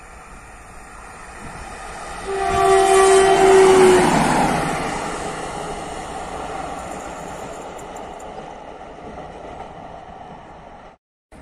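Diesel shunting locomotive running light past at close range, sounding a single steady horn note for nearly two seconds as it draws level. Its engine and wheel noise swells to a peak while it passes and then slowly fades as it runs away; the sound cuts out abruptly near the end.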